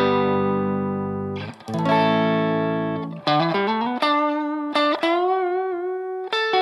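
Electric guitar, a Fender Telecaster with single-coil pickups, played through a low-gain Vox-style amp model: a strummed chord left to ring, a second strum about a second and a half in, then a single-note line with string bends and vibrato.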